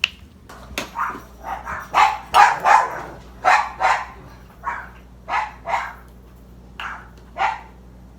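Dogs barking in a rapid series of short barks, loudest a couple of seconds in and thinning to a few spaced barks near the end. They are barking at someone arriving home.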